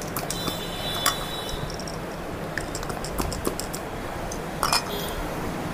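A hand-pump vacuum cupping set at work: sharp clicks and light clinks as plastic cups are placed on a bare back and the pistol-grip pump is worked to draw suction. A brief high whistle sounds in the first second and a half, over a steady low background hum.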